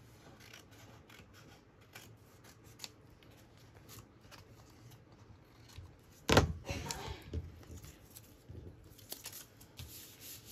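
Steel scissors snipping through paper card in a run of short cuts, with paper being handled. There is one loud thump against the table about six seconds in.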